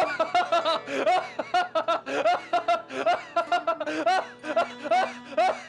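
High-pitched laughter: a quick run of short rising-and-falling 'hee' sounds, about two or three a second, over faint background music.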